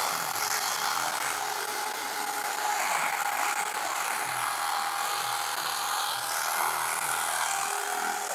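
Electric carving knife running steadily, its silicone-lubed blades sawing through a slab of case foam. The sound is sped up fourfold, so the motor buzz comes out high-pitched.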